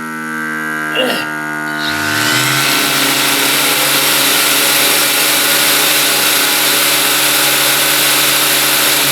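Grabo vacuum pump spinning up about two seconds in, its pitch rising, then running steadily with a rushing air noise over a constant electrical hum as it pulls suction through the vacuum dog.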